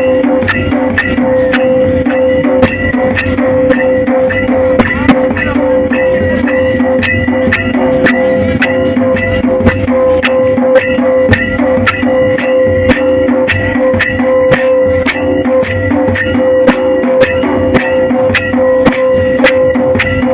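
Tribal drum beaten in a steady, even rhythm of about three sharp strokes a second, played loud over a continuous held drone tone.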